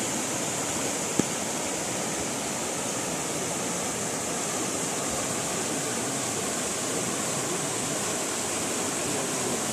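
Floodwater rushing steadily through a breach in a washed-out road, with one short click about a second in.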